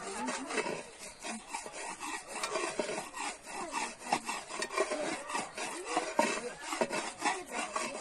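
Quick, even rasping strokes, several a second, of food being rubbed back and forth on a hand grater.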